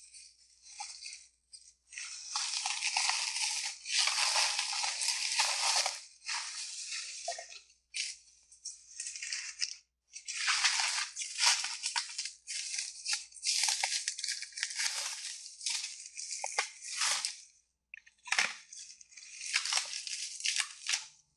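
Bubble wrap crinkling and rustling as it is handled and pulled open by hand, in irregular bursts with short pauses.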